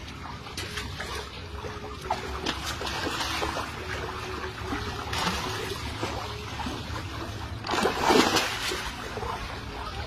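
Water trickling and splashing, with a louder splash about eight seconds in.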